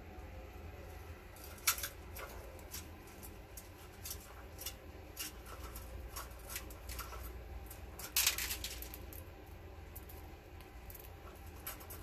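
Budgerigar cracking and husking seed from a hand: a run of small, sharp clicks, with a louder cluster about eight seconds in.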